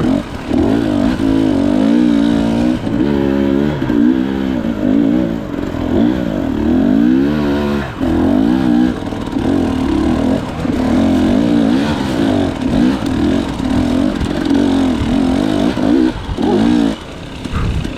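KTM 300 XC-W's single-cylinder two-stroke engine revving hard up and down under load on a steep dirt-bike climb, its pitch swooping with the throttle throughout. The engine briefly drops off about eight seconds in and again near the end.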